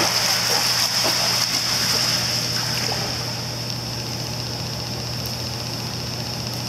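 Pool water splashing and sloshing as a dog wades through the shallow end, louder for the first three seconds or so and then settling, over a steady low machine hum and hiss.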